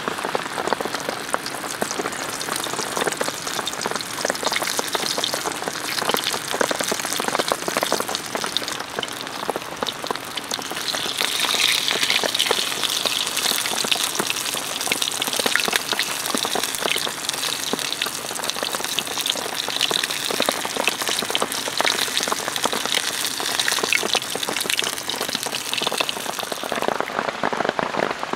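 Steady rain pattering, mixed with the sizzle of battered fritters deep-frying in a pan of hot oil.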